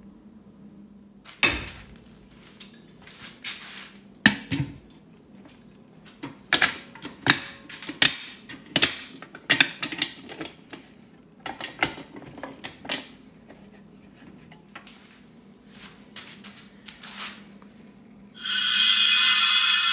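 Metal knocks and clanks as the lid of a resin-casting pressure pot is handled and fastened down. About eighteen seconds in, a loud steady hiss of compressed air begins rushing into the pot, pressurising it to cast the epoxy.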